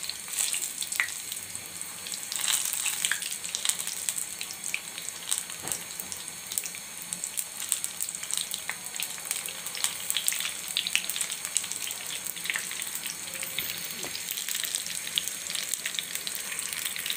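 Battered cauliflower pakoras deep-frying in hot oil in a karahi: a steady sizzle thick with quick, fine crackles and pops.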